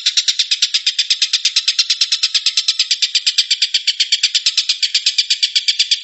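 Oriental dollarbird (tengkek buto) giving its rapid-fire 'tembakan' chatter: an unbroken, even series of short notes, about ten a second.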